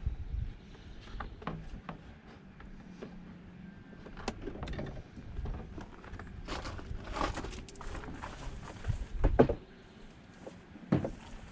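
Scattered clicks, knocks and rattles of hands working on a pickup truck's door, with a louder thump about nine seconds in and another near eleven seconds.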